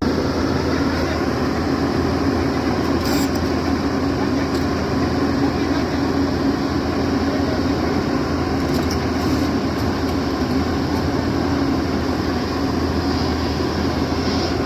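Hyundai excavator's engine running steadily, a constant low hum.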